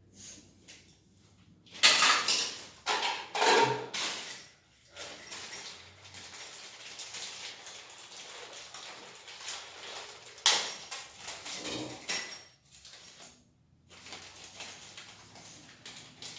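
Hard parts of a toilet cistern's flush and fill fittings being handled: a few sharp knocks and clacks, the loudest about two seconds in and again near the middle, with scraping and rubbing between them.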